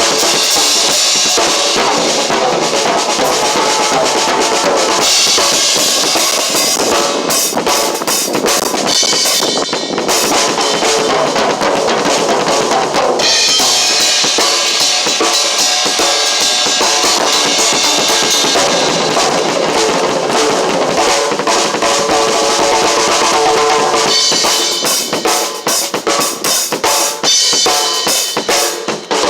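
Drum kit played continuously, with bass drum, snare and a steady wash of cymbals. Near the end the playing breaks up into more separate, spaced hits.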